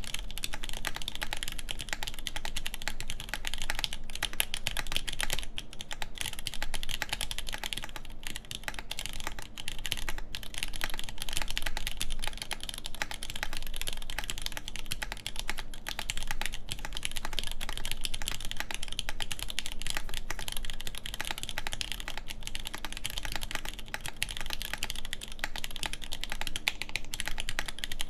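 Continuous typing on a mechanical keyboard with Nixdorf Cherry MX Black linear switches mounted in a full aluminum plate, under OG Desko keycaps: a dense, steady stream of keystrokes.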